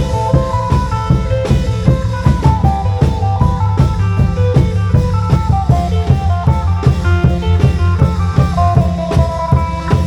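Isan folk music: a plucked phin lute playing a stepping melody over a steady, driving klong yao long-drum beat.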